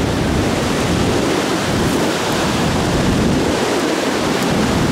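Steady rush of river rapids, with wind buffeting the microphone.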